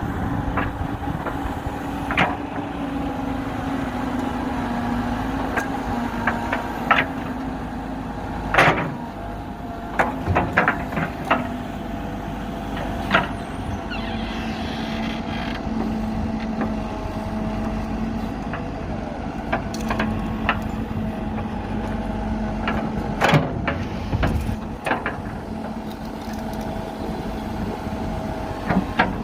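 Diesel engine of a JCB backhoe loader running steadily at work. Its pitch drops slightly about halfway through, and about a dozen sharp knocks and clanks from the working machine come at irregular moments.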